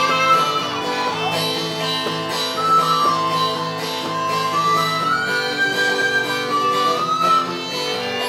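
Live folk band playing an instrumental introduction to an Irish folk song: a sustained wind-instrument melody over acoustic guitar, with fiddle underneath.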